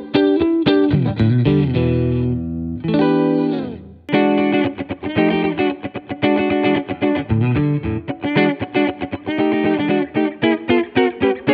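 Gusta GST-05 HSS electric guitar played with a clean amp tone: fast picked single-note runs, with a held note ringing about two to three seconds in, a brief break just before four seconds, then rapid runs again. The tone comes from the Gusta Vintage Single Coil 2 pickups, at first the neck and middle together and then the middle pickup alone.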